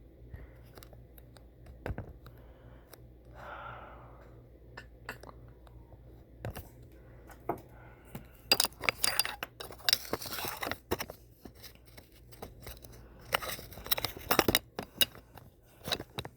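Close-up handling noise: scattered clicks and scrapes, then bursts of rustling and clicking roughly halfway in and again near the end, which are the loudest sounds.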